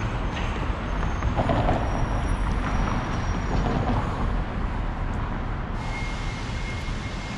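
City street traffic noise under a steady low rumble of wind on the microphone, with a faint steady high tone that comes in about six seconds in.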